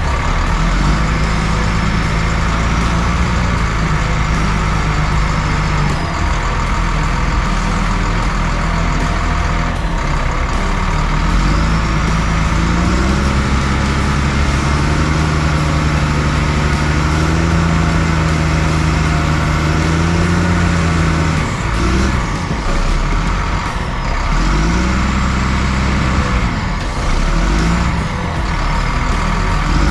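Caterpillar D6M bulldozer's diesel engine running loud from the operator's seat, its note rising and falling as the machine works and takes load, with a clear pitch climb about halfway through and several dips and swings near the end.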